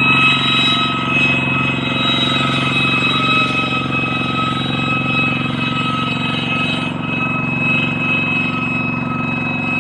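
Single-cylinder diesel engine of a two-wheel hand tractor running steadily as it is driven through a muddy rice paddy, with a continuous high-pitched whistling tone over the engine.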